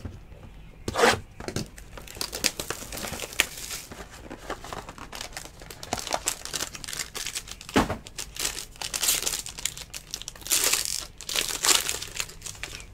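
Foil wrapper on a Topps Tier One baseball card box crinkling and tearing as the box is unwrapped and opened by hand: an irregular run of crackles with a few sharper rips, the first about a second in.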